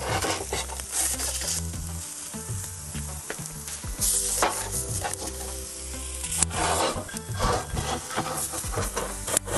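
Tomahawk steak sizzling on a very hot cast-iron grill plate in a wood-fired pizza oven while it is turned a quarter turn with metal tongs. The sizzle flares up several times as the meat is moved and the tongs scrape on the plate.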